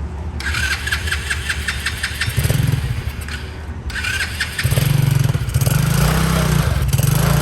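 A 110cc dirt bike's engine running and being revved. A rhythmic ticking comes first; the engine note swells about two seconds in, drops back, then rises again and stays louder from about halfway through.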